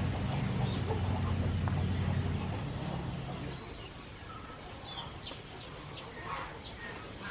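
Chickens clucking in short, separate calls during the second half, after a low steady hum that fades out in the first few seconds.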